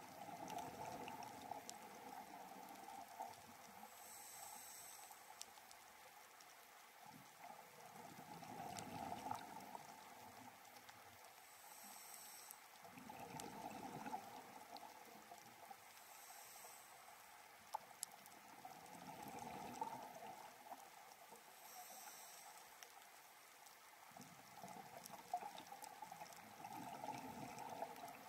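Scuba diver breathing through a regulator, heard through a camera's underwater housing. Each inhale is a brief high hiss and each exhale a longer swell of bubbling, about one breath every five to six seconds.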